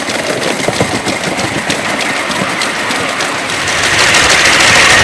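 5-inch gauge live-steam model of an LNER A4 locomotive running on its track: a rapid, rattling stream of clicks and beats with a steady hiss, getting louder about four seconds in.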